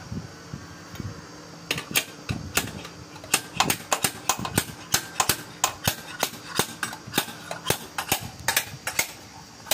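A rapid run of sharp clicks, about three or four a second and slightly uneven, starting about two seconds in.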